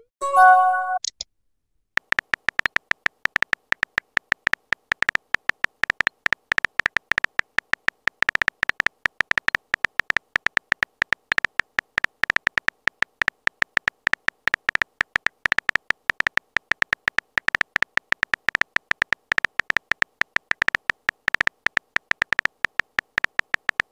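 Texting-app sound effects: a short chime of a few notes in the first second, then, after a brief pause, a fast and irregular stream of virtual-keyboard tap clicks.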